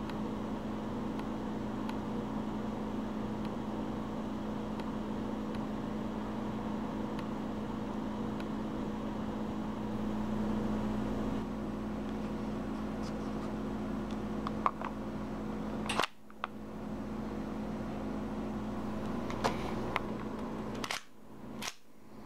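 A steady background hum, with a handful of sharp metallic clicks in the second half as an airsoft 1911 pistol is handled. The hum cuts out abruptly twice near the clicks.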